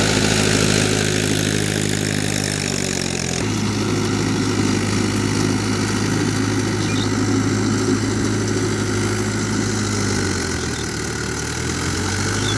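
Mahindra Yuvo 575 DI tractor's diesel engine running under load, dragging a rotavator through wet paddy-field mud in which the tractor keeps sinking. Its note drops over the first few seconds, then about three seconds in it changes abruptly to a steadier, more distant engine sound.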